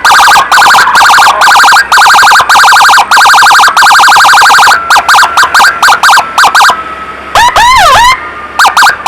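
Ambulance 'devil siren' (sirine setan): a very fast chirping yelp pattern, switched on and off in quick bursts. Near the end it gives two slower rising-and-falling wail sweeps, then a couple more short chirp bursts.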